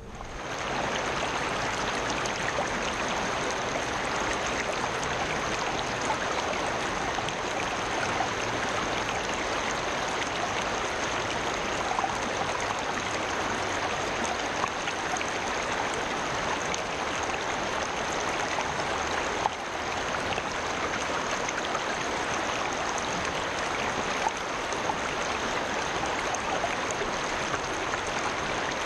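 Shallow creek running over a stony bed close by: a steady, even rush and ripple of water.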